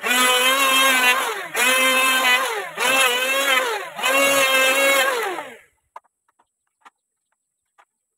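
A handheld electric power tool run in four short bursts of about a second each, its motor whine dipping in pitch as each burst ends.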